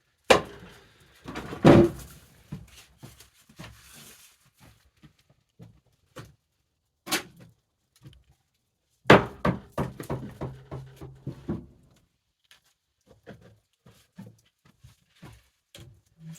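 Several heavy knocks and clunks: two about a second apart near the start, the loudest of them second; one about seven seconds in; and one about nine seconds in that runs on into a couple of seconds of rattling over a steady low hum.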